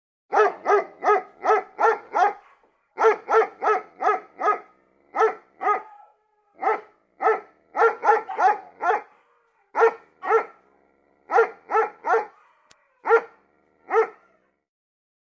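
A dog barking repeatedly, about two dozen short barks in quick runs of two to six with brief pauses between them.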